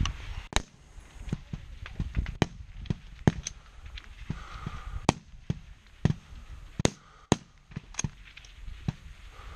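Rifle shots from many rifles along a high-power rifle match firing line, about fifteen sharp reports at uneven intervals in a few seconds, the loudest about a third of the way in.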